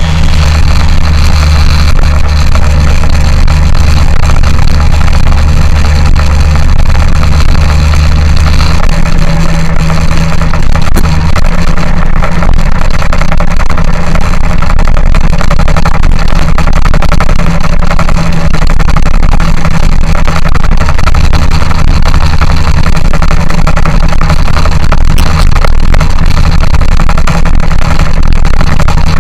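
A motor vehicle engine running loudly and steadily, with a low drone that changes about nine seconds in.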